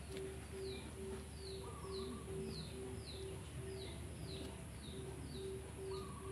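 A bird calling in a steady series of short, falling chirps, about two a second, over an evenly pulsing low tone.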